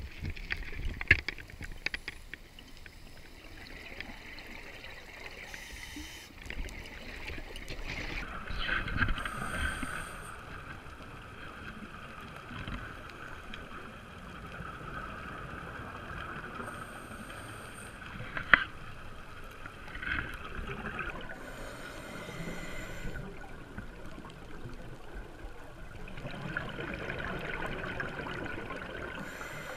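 Scuba breathing heard underwater through a camera housing: regulator hiss and the bubbling gurgle of exhaled air, swelling and fading every few seconds with each breath. Two sharp clicks, about a second in and a little past halfway.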